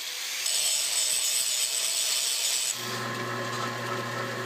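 Angle grinder grinding a flat spot through the hardened outer layer of a steel loader pin, a harsh steady hiss. Near three seconds in it cuts to a drill press motor running with a steady hum as the bit drills a cross hole into the pin.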